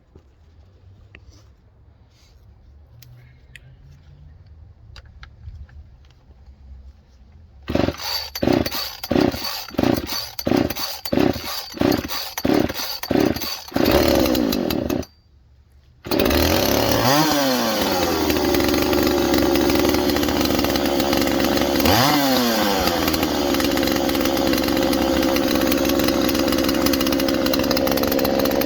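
Freshly ported Poulan Pro 255 two-stroke chainsaw on its first run after porting. After a few quiet seconds it is pulled over about ten times in quick succession and catches, runs briefly, then cuts off suddenly. It then restarts and runs steadily, revved up and back down twice.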